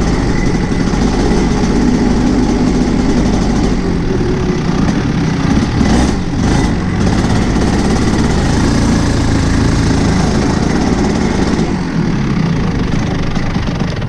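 Rotax 125 Junior Max Evo kart's single-cylinder two-stroke engine running, with a brief dip about six seconds in and the sound easing off near the end.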